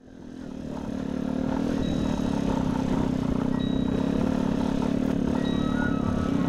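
Motorcycle engine running steadily, fading in over about the first second.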